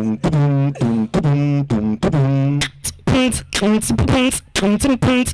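A person beatboxing into a handheld microphone over a PA: short held vocal hums and buzzes broken up by sharp clicks and pops in a choppy rhythm.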